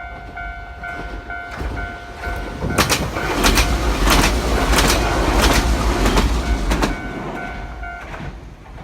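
Level-crossing warning bell ringing in quick, even pulses as a Nagano Electric Railway 1000 series 'Yukemuri' limited-express train passes. From about three seconds in, the train rumbles through for about four seconds, its wheels clacking over the rail joints. The crossing bell stops near the end as the train clears the crossing.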